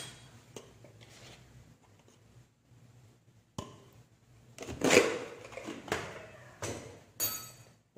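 A spoon and steel kitchenware being handled. After a quiet start there are a few short knocks and clinks in the second half, the loudest about five seconds in.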